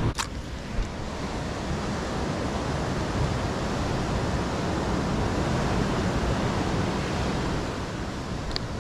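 Ocean surf washing against the shore, with wind buffeting the microphone: a steady rush that swells through the middle and eases near the end. A short sharp click sounds just after the start.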